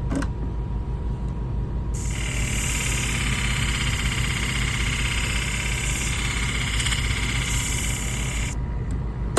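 A curved shear blade is ground against a spinning 600-grit flat hone, making a steady grinding hiss from about two seconds in until near the end. Under it runs the hone's motor hum.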